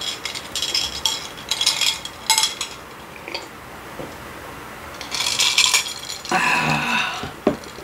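Ice cubes rattling and clinking in a glass of cold water as it is handled, drunk from and stirred, in several short bursts: two or three in the first few seconds and two more near the end.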